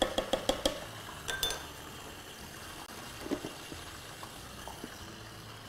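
A wooden spoon tapping several times against a cooking pot, then a ringing clink of a glass pot lid, and a soft knock about three seconds in as the lid is set down on the pot. A faint steady sizzle of frying runs underneath.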